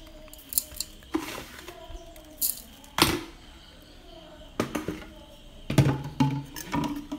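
Scattered light clicks and knocks of kitchen utensils against a metal pot, the loudest about three seconds in, with faint voices in the background.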